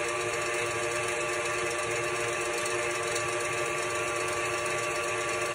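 Tilt-head stand mixer running steadily with its wire whisk, beating egg whites and sugar into a meringue on the way to soft peaks: an even motor whine over a hiss.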